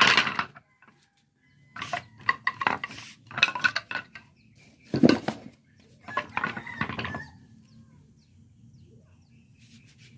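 Sanded wooden posts and battens clattering as they are picked up and set down against each other and a concrete floor, in several bursts of knocks that die down near the end.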